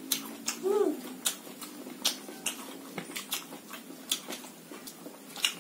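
Close mouth sounds of hand-eating a mukbang meal: irregular wet clicks and smacks of chewing, a few every second. About a second in there is a brief high rising-and-falling vocal sound.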